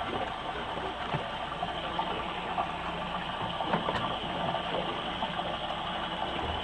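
Steady rushing and splashing of water, with a few light knocks.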